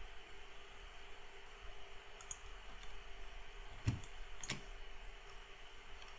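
A few computer mouse clicks, the two loudest about four seconds in and half a second apart, over a faint steady hum.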